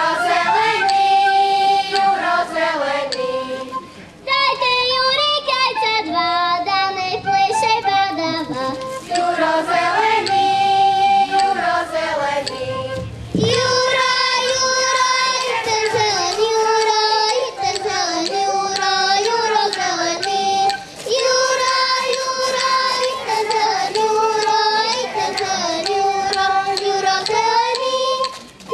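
Children's folk ensemble of girls singing a Slovak folk song together, pausing briefly twice between phrases.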